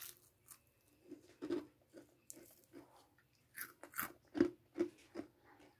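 Someone biting into and chewing a breadcrumb-coated, oil-fried cucumber stick: a string of irregular crisp crunches, the loudest in the second half.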